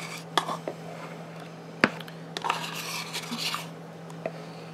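Spatula scraping strawberry yogurt out of a plastic yogurt cup into a plastic mixing bowl: soft scrapes and rubs with a few light plastic clicks and taps, a sharper click about two seconds in. A faint steady low hum runs underneath.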